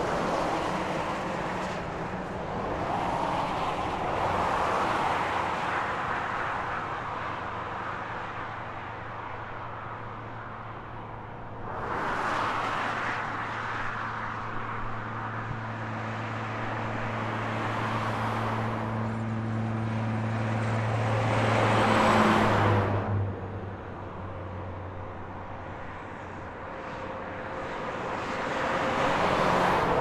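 Interstate highway traffic: vehicles approach and pass one after another, each a swelling and fading rush of tyre noise, starting with a semi truck. A steady low engine hum builds up to the loudest pass about 22 seconds in and then drops away suddenly.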